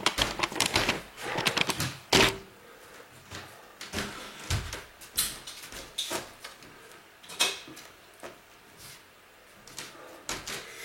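Irregular clicks, knocks and rustles of things being handled, with one sharper knock about two seconds in.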